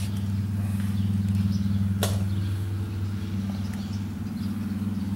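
Steady low hum throughout, with one sharp click about two seconds in as the small hinged wooden door of a toy barn model is swung open.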